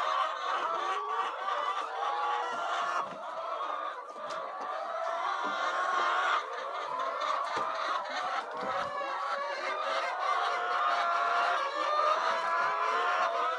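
A flock of chickens clucking and calling over one another, with a steady layer of overlapping calls. The level jumps suddenly about six seconds in.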